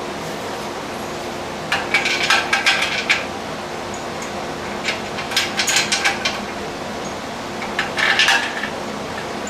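Metal clinking and rattling in three short clusters as home-gym hardware and tools are handled, over a steady fan hum.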